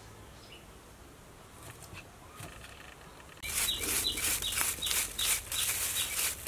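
Plastic-gloved hands squeezing and scrunching shredded white radish and carrot in a plastic colander: a quick run of short, crackly rustles that starts suddenly about three and a half seconds in, after a quiet stretch.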